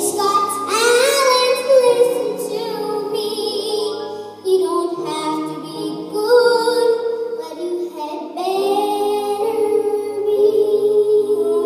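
A five-year-old girl singing a show tune solo over instrumental accompaniment.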